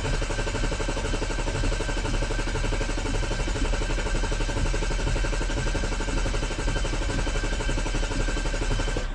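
BMW N55 inline-six being cranked over by its starter with the injectors disconnected, so it turns without firing, for a compression test on misfiring cylinder 3. It cranks steadily and stops abruptly near the end.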